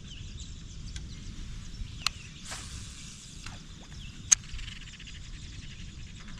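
Fishing rod and reel being cast and worked: two sharp clicks, the second louder, with a short hiss of line running out after the first. Faint bird and insect chirps and low river-side rumble sit behind it.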